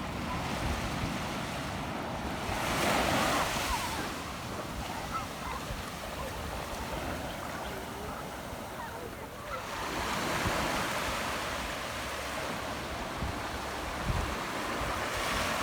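Ocean surf: waves washing onto a beach, the sound swelling as a wave breaks about three seconds in and again from about ten seconds in.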